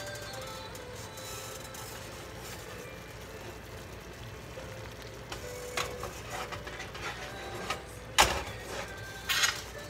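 Stainless steel pot handled on an electric coil burner: a few light scrapes and taps, then two sharp metal clunks about a second apart near the end as the pot is shifted on the coil.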